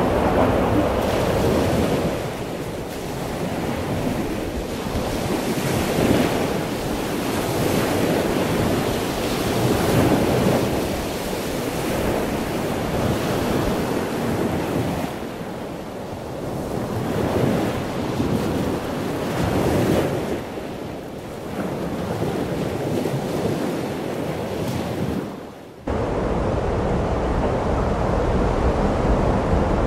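Ocean waves breaking and rushing, the surf noise swelling and fading, with wind buffeting the microphone. About 26 seconds in the sound cuts abruptly to a steadier, deeper rumble.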